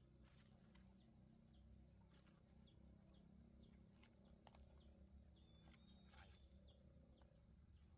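Near silence: faint outdoor ambience with scattered soft clicks and brief high chirps.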